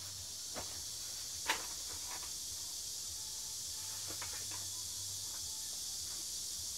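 Plastic cassette tape cases clicking and clacking as they are handled and slotted onto a shelf: a few scattered sharp clicks, the loudest about one and a half seconds in, over a steady hiss.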